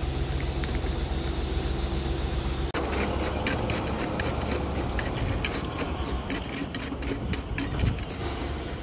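Concrete mixer truck's diesel engine running steadily with a low hum. About three seconds in the sound cuts, and the engine hum carries on under a run of quick knocks and scrapes from a steel rod tamping fresh concrete in a slump cone.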